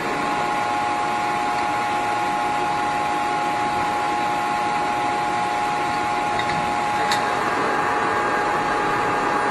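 Heavy-duty lathe running with a steady drone and a constant whine, and one short click about seven seconds in.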